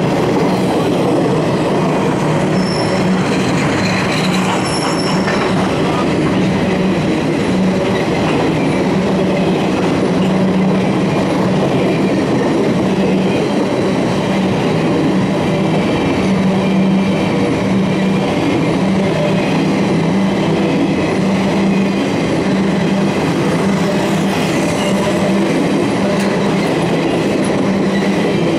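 Rail train flatcars, fitted with racks for carrying rail, rolling past close by: a loud, steady rumble of steel wheels on the rails.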